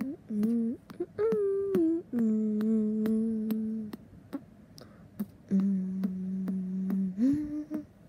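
A person humming a slow tune in long held notes, with short sharp clicks between them.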